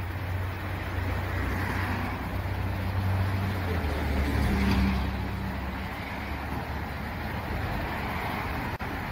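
Road traffic passing, one vehicle growing louder and fading away about four to five seconds in, over a steady low engine hum.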